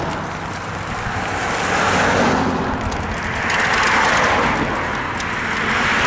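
Road traffic: cars passing one after another in the opposite lane, their tyre and engine noise swelling about every two seconds, over a steady low rumble from the moving vehicle carrying the microphone.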